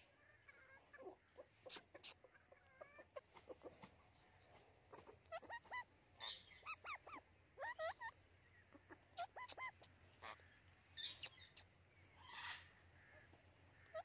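Chickens clucking in short, scattered calls that bend in pitch, several in quick runs through the middle, with a few sharp clicks in between.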